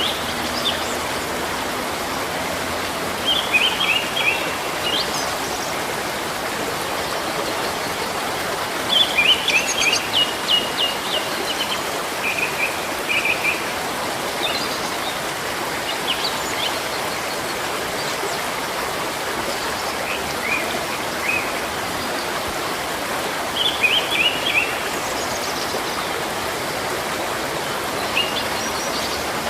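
Steady rushing of a stream, with a small bird chirping in short rapid phrases five or so times over it.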